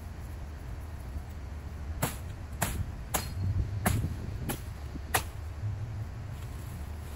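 Machete chopping into palm fronds and brush: six sharp strikes, about one every 0.6 seconds, from about two seconds in, over a steady low background rumble.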